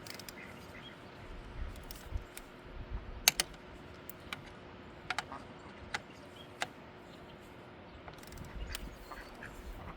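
Hand tools clicking and clinking on metal, a few sharp irregular clicks with the loudest pair about a third of the way in, while the alternator mounting bolts are tightened. A faint steady hum runs underneath.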